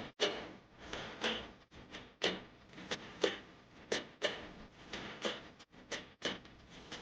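A cooking utensil knocking and clinking against a pot, in a series of sharp strokes about one to two a second, some with a short metallic ring.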